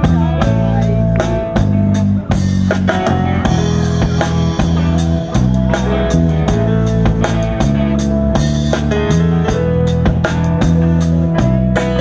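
Band music without singing: guitar, bass and a drum kit playing a steady beat.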